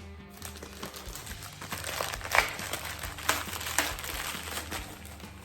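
Plastic packaging crinkling and crackling as it is handled, with a few sharper crackles in the middle.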